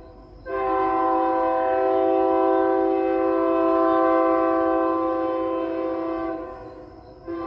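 Train horn sounding a chord of steady tones in one long blast that fades out, with the next blast starting near the end.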